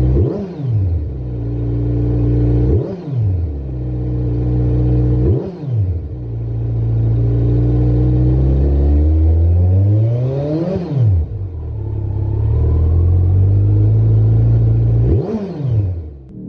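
Kawasaki Z900's 948 cc inline-four engine idling and blipped on the throttle, heard at the exhaust. Quick revs come about every two and a half seconds, and a slower, longer climb in the middle falls back to idle.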